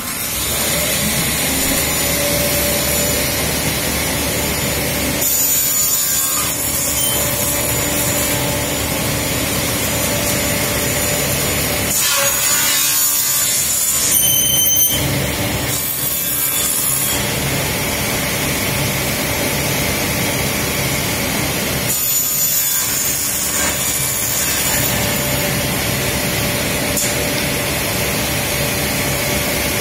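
Sliding panel saw starting up abruptly and running, its blade cutting corners off a square plywood board fed at an angle; the sound changes with each pass, about five, twelve and twenty-two seconds in.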